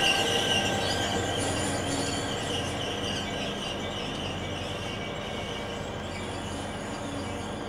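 NJ Transit ALP-45DP locomotive and its train moving away over the rails, wheels squealing with thin high tones, the rumble fading steadily.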